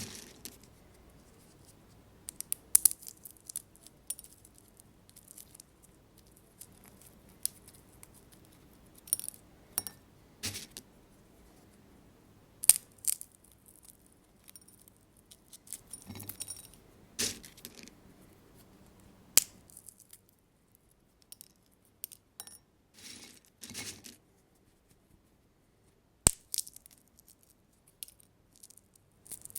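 Sunflower seeds cracking in a glass bowl: irregular sharp cracks and clicks, some single and some in quick clusters, with short quiet pauses between.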